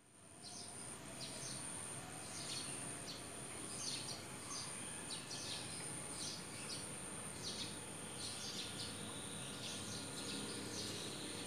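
Outdoor garden ambience: small birds chirping in short, irregular calls over a steady, high-pitched insect drone and a faint background hiss.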